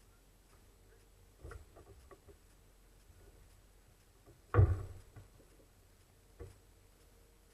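Near silence broken by a few knocks: a light one about a second and a half in, a loud thump about four and a half seconds in, and a smaller one near the end.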